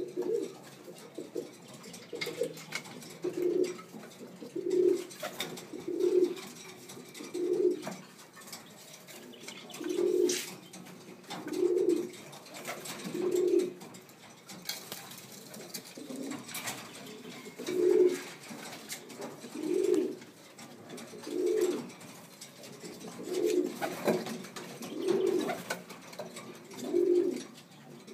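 Domestic pigeons cooing: a low, rounded coo repeated about every one and a half seconds, pausing briefly twice.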